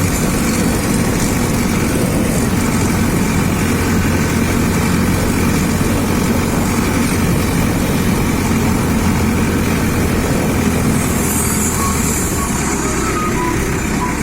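An engine running steadily at an even speed, a constant low hum that does not rise or fall.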